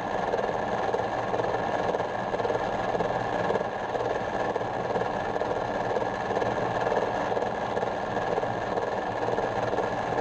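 Belt-driven metal lathe running with an acrylic blank turning in the chuck, the lead screw in reverse carrying the carriage back with the tool backed off the work. The motor and gearing make a steady whirr with a faint, even pulsing.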